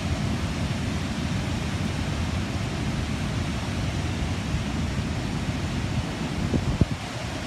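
Steady rush of fast, churning river water in a dam's tailwater, with wind buffeting the microphone. A single brief knock comes near the end.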